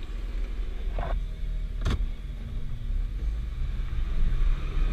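Jeep engine running at low revs as it crawls over rough trail, heard from inside the cab as a steady low rumble. A short squeak comes about a second in, and a single sharp knock just before two seconds.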